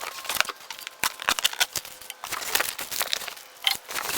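Packaging being opened by hand: irregular crinkling, crackling and tearing of packing material, with short rustles and scrapes.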